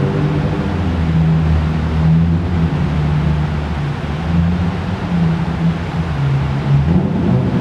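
Citroën Saxo 1.6 8V's four-cylinder petrol engine running at low revs, heard through its exhaust as a steady low drone that wavers a little in pitch and rises slightly near the end.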